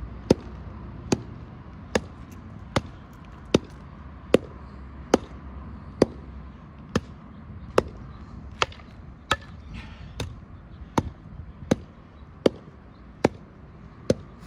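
Hand tamper pounding cold-patch asphalt in a pothole, a sharp thud about every 0.8 seconds, compacting the patch.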